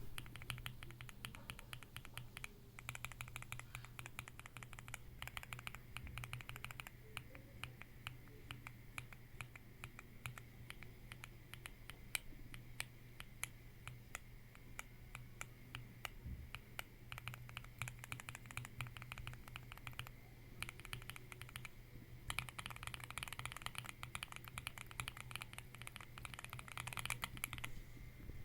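Keystrokes on a mechanical keyboard fitted with Space Studio Loopy linear switches (factory-lubed, POM top and PA66 bottom housings): a steady stream of key clicks with a couple of faster runs of typing, over a steady low hum.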